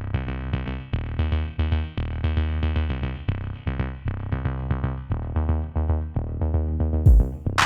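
Electronic background music: short repeated synthesizer notes over a steady bass line. About seven seconds in, a heavy drum hit and a bright rising sweep come in.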